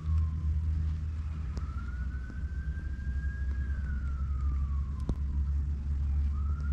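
An emergency-vehicle siren wailing slowly, its pitch rising and falling over several seconds, over a steady low rumble.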